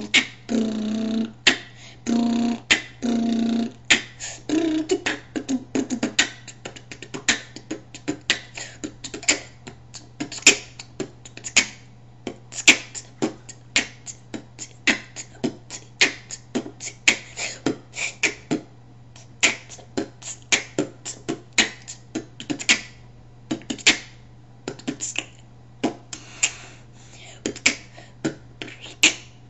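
Boy beatboxing: a fast, uneven run of sharp mouth clicks and pops, several a second, with three short hummed bass notes in the first few seconds. A steady low hum lies underneath.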